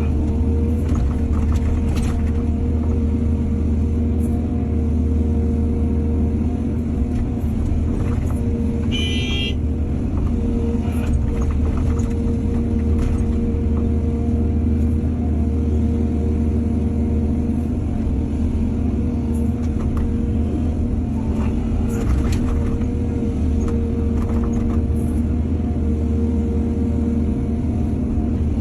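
Excavator's diesel engine running steadily, with scattered light clanks. A brief high-pitched squeal about nine seconds in.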